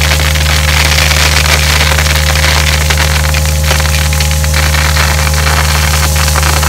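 Mini excavator's diesel engine running steadily while its bucket tips out gravel, a rushing rattle of stones that is strongest over the first four seconds or so.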